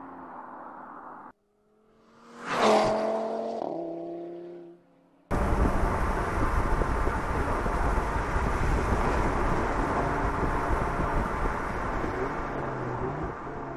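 Audi TT RS Roadster's turbocharged 2.5-litre five-cylinder engine. A steady engine note cuts off about a second in. A car then passes close, its engine note loud and falling in pitch as it goes by. After that comes loud wind and road noise over the engine running at speed, from a camera mounted on the car's body.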